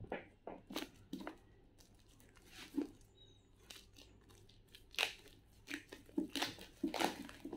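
Wrapping on a bundle of paper sheets being torn and crinkled open by hand, in irregular rustles and rips that grow louder near the end.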